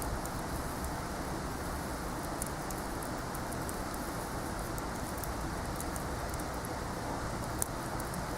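Wood fire burning, with scattered sharp crackles and pops over a steady rushing noise; one louder pop near the end.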